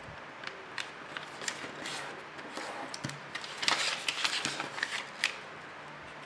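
A square sheet of origami paper being folded edge to edge and creased by hand: crisp rustles and crinkles, loudest for about a second just past the middle as the sheet is opened out flat.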